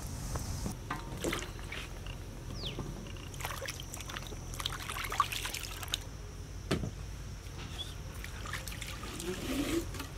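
Water splashing and trickling as raw green mangoes are washed by hand in a steel tub, with scattered clicks and knocks as the fruit is handled.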